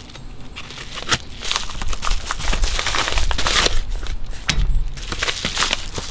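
Paper crinkling and rustling as a yellow padded mailer is slit open with a knife and the paper inside is pulled out and handled, with a couple of sharp taps about a second in and near the middle.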